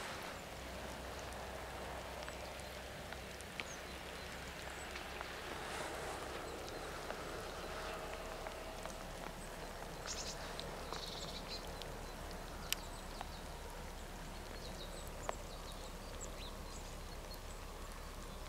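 Steady outdoor background noise with scattered faint clicks and ticks, and a few brief high chirps about halfway through; no train is heard passing.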